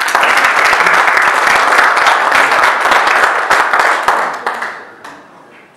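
Audience applauding: a dense burst of many hands clapping that tails off and dies away after about four and a half seconds.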